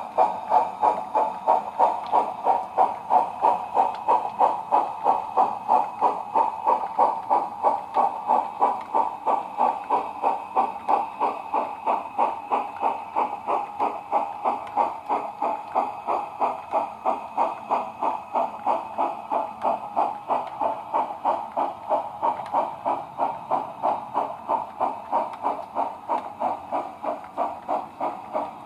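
Digital sound decoder on a model ROD 2-8-0 steam locomotive playing its exhaust chuffs through the model's small onboard speaker: an even beat of about two to three chuffs a second as the train runs at steady speed, fading slightly near the end.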